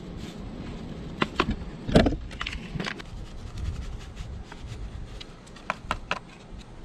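Paper seasoning packets crinkling as they are tipped and shaken, pouring powdered gravy and seasoning mix onto a roast in a cast-iron Dutch oven: a scatter of small crinkles and clicks, the loudest about two seconds in, over a low steady rumble.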